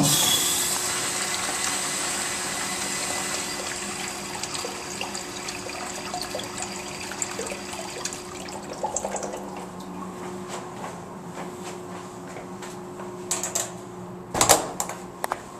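Kohler urinal flushing: a sudden rush of water from the flush valve that slowly fades over about ten seconds as the flush tapers off. A few sharp knocks near the end.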